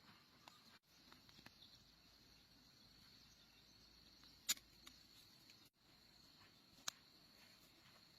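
Near silence: a faint, steady high-pitched hiss, with two sharp clicks about two and a half seconds apart.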